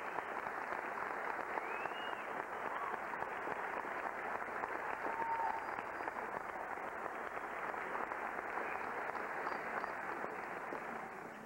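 Audience applauding steadily, with a few brief cheers over the clapping; the applause fades away near the end.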